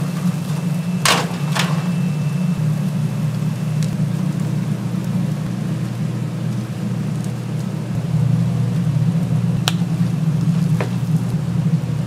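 Steady low hum of kitchen equipment, with two sharp clicks about a second in, the first followed by a brief ringing tone like a clink on metal or a dish, and two more clicks near the end.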